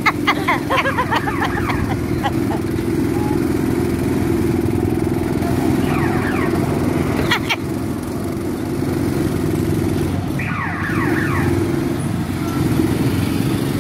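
Small petrol go-kart engines running steadily, a continuous low drone, with bursts of short high-pitched squeals near the start and twice more later.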